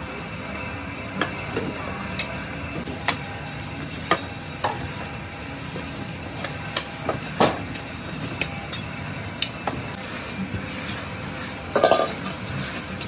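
Moulding sand being packed into a steel casting flask: sharp, irregular knocks and clinks of metal roughly once a second, with a louder cluster near the end, over a steady workshop machinery hum.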